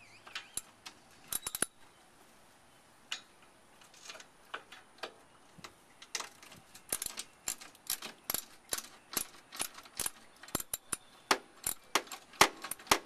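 Ratchet wrench clicking as a side-step mounting nut is loosened: a few scattered clicks at first, then a steady run of several clicks a second from about halfway through.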